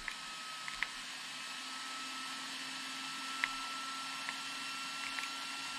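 Small cooling fan of a brushless RC car ESC running steadily, a soft whir with a faint high whine, and a few faint clicks.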